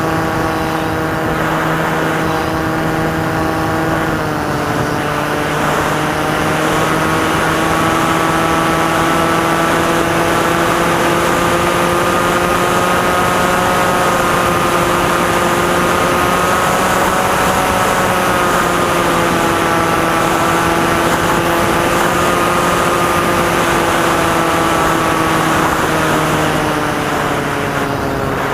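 Electric motor and propeller of a Maxi Swift FPV model aircraft droning steadily over a rushing hiss. The pitch dips slightly about four seconds in, then drifts gently up and down with the throttle.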